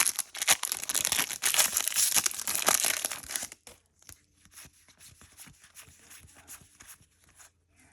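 Pokémon booster pack foil wrapper crinkling and tearing for about three and a half seconds, then only faint light rustles and ticks of handling.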